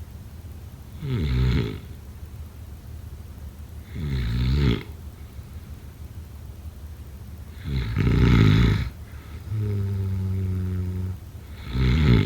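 Snoring: a loud rasping snore about every three to four seconds, four in all, the last cut off at the end. After the third comes a steady low tone, held for about a second and a half.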